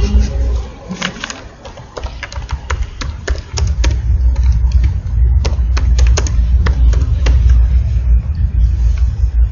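Computer keyboard keys clicking in irregular runs of typing, over a steady low rumble.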